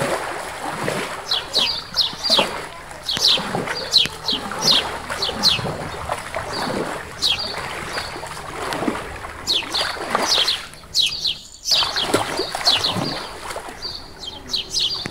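Water splashing and sloshing in a swimming pool, rising and falling unevenly, with birds chirping over it in quick clusters of short high notes that drop in pitch.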